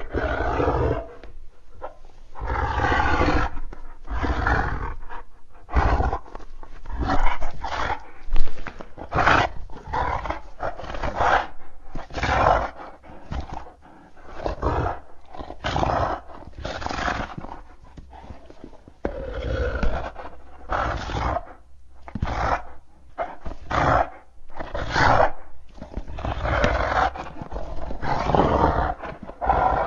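Creature sound effects: a long series of animal-like roars, growls and howls. Short snarls and longer calls follow one another with brief gaps between them.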